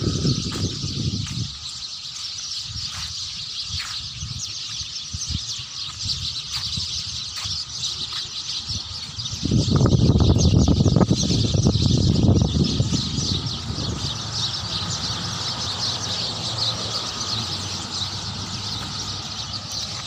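Many small birds chirping together in a tree, a dense, continuous chorus. From about halfway in, a loud low rumble on the microphone covers it for a few seconds and then fades back.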